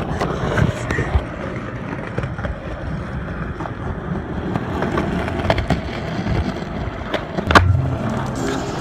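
Skateboard wheels rolling on pavement: a steady rumble with scattered sharp clicks, and one loud clack about seven and a half seconds in. Music with a bass line comes in near the end.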